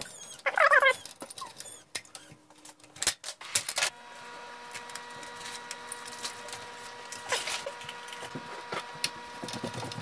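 Screwdriver driving a screw into a steel computer case: a short squeaky scrape as the screw turns near the start, then sharp metal clicks and taps. From about four seconds in, a faint steady hum runs underneath.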